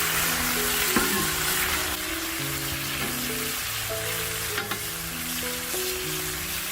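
Beef and vegetables sizzling on a hot sadj griddle: a steady crackling hiss, with a couple of light clicks. Soft background music with long held notes plays underneath.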